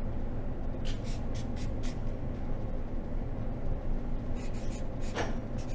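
Felt-tip marker writing on flip-chart paper: short scratchy strokes, a run of them about a second in and another near the end, over a steady low hum.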